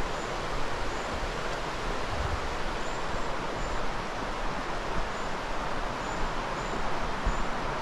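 River water pouring over a waterfall and its rapids: a steady, even rush.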